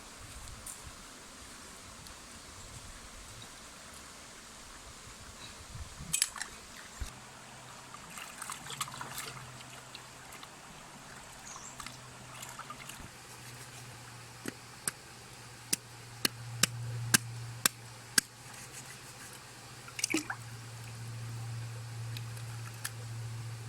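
Water trickling and dripping, with a scatter of sharp clicks and taps and a low steady hum that sets in about a third of the way through.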